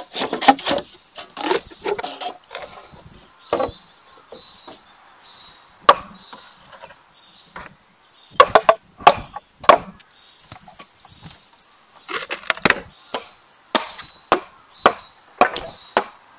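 Bamboo being chopped with a blade: a dozen or so sharp woody strikes at irregular intervals, some in quick pairs.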